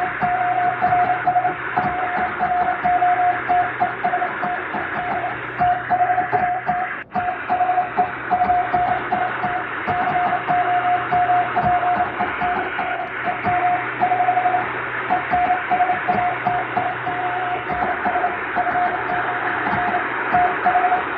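Morse code (CW) keyed as a single steady tone in dots and dashes, heard through shortwave-style static hiss and a low hum, with fading like old shortwave radio reception. The noise drops out for an instant about seven seconds in.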